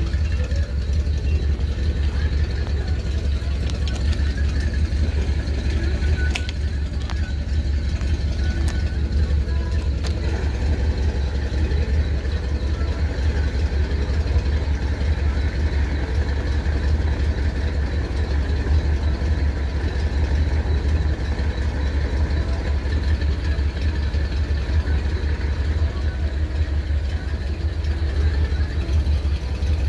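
Steady low rumble of an idling engine, even throughout, with a few faint clicks about a third of the way in.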